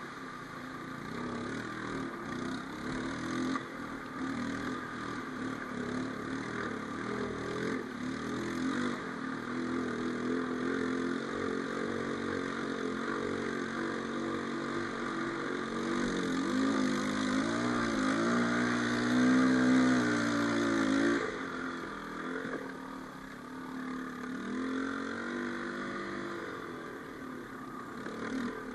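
A 250 ATV's engine running as the quad drives through shallow water, its note rising and falling with the throttle. It revs up and gets louder about two-thirds of the way through, drops back suddenly, then rises and falls briefly again near the end.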